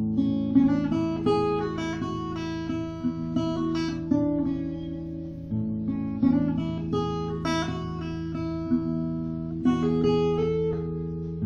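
Background music on guitar: a continuous run of plucked notes, each starting sharply and fading.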